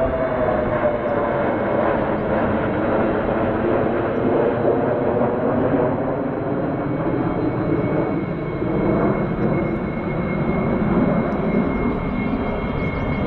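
Jet engine noise from a formation of four Sukhoi Flanker twin-engine fighters flying overhead: a loud, steady rush, with a whine that falls slowly in pitch in the first couple of seconds as they pass.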